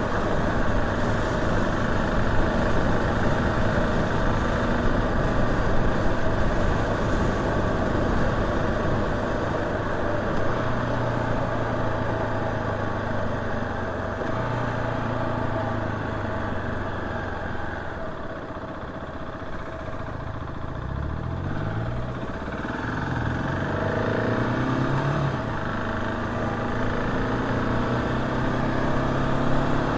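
KTM 690 SMC R's single-cylinder engine running as the motorcycle is ridden, its pitch rising several times in a row a little past the middle of the stretch as the rider opens the throttle.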